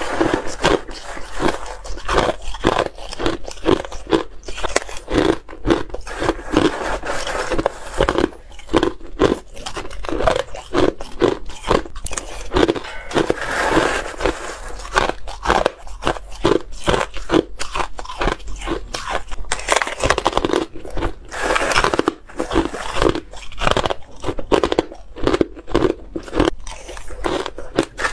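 Close-miked chewing of shaved ice: dense, sharp crunches follow one another quickly throughout.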